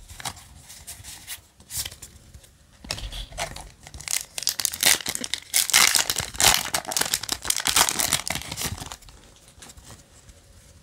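Foil wrapper of a Yu-Gi-Oh! booster pack being torn open and crinkled: a few light clicks and rustles at first, then a dense, loud crackling from about four seconds in that stops about nine seconds in.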